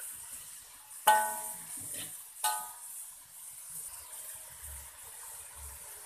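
Metal spatula striking an aluminium wok during stir-frying: a few sharp, ringing clangs, the loudest about a second in and another near two and a half seconds. After that the spatula rests in the pan and only a faint, steady sizzle of the frying pupae and chillies continues.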